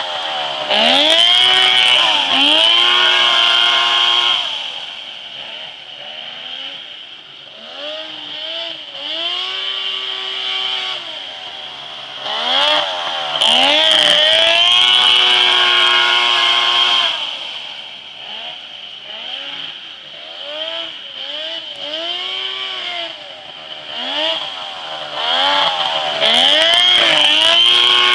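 Off-road buggy powered by a Polaris three-cylinder snowmobile engine, revving up and down as it is driven. It grows loud three times, about twelve seconds apart, and is quieter in between.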